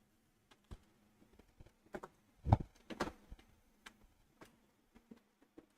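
Mechanical keyboard keys fitted with Outemu Black switches being pressed slowly and unevenly, single key clacks with a quick cluster of louder strokes about two and a half to three seconds in. The switches are stiff and hard to press.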